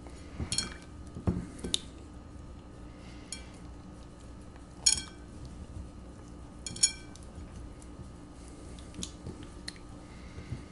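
A clear glass bowl clinking as chicken is dipped and turned in egg wash. About eight sharp knocks at uneven intervals, the two loudest ringing briefly about five and seven seconds in.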